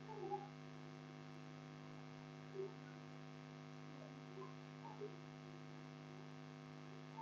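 Faint, steady electrical hum, with a few faint brief blips over it.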